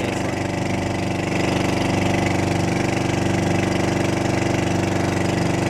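Engine of an outrigger fishing boat under way, running steadily at cruising speed, with an even rapid pulsing and a steady hiss above it.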